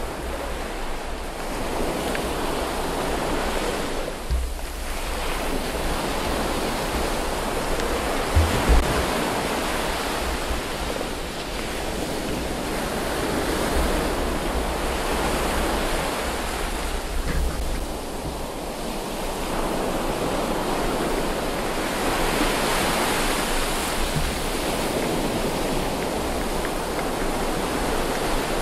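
Water rushing and sloshing around a submerged camera, a dense hiss that swells and eases every few seconds, with a couple of low thumps about eight seconds in.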